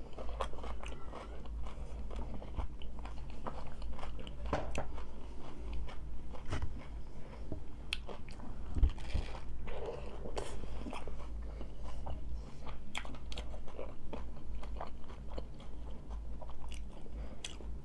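Close-up chewing and crunching of crunchy hard-shell tacos: an irregular run of sharp cracks and crackles mixed with chewing.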